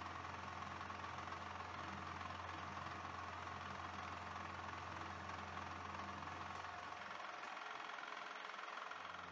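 Small hobby milling machine running, its 4 mm end mill plunge-cutting into a metal workpiece: a steady motor hum. The low part of the hum fades about seven seconds in as the cutter comes up out of the work.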